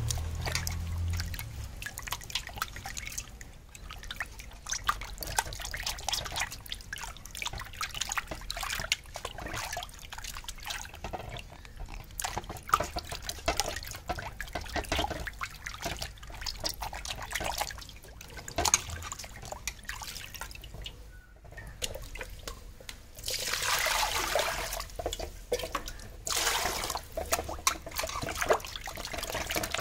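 Hands washing cleaned mackerel in a basin of water: repeated splashing and sloshing, with heavier, louder splashing over the last several seconds.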